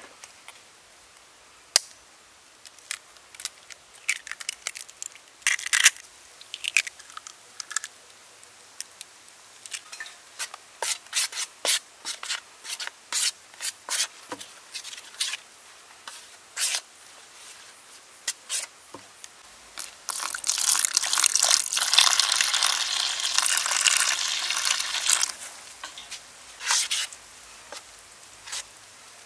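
A metal spoon scraping and clicking against a stainless steel tray while mixing flour and egg into batter, in short irregular strokes. About twenty seconds in, a steady hiss runs for about five seconds, louder than the strokes, as the mixture turns wet.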